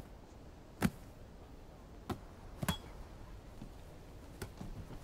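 A few short, sharp thuds at uneven intervals, the loudest about a second in and others about two, two and a half and four and a half seconds in, over a faint outdoor background.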